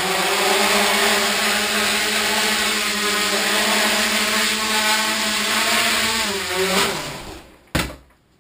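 Small tricopter's three electric motors and propellers whirring steadily at a high pitch, then winding down with falling pitch. One sharp knock comes soon after they stop.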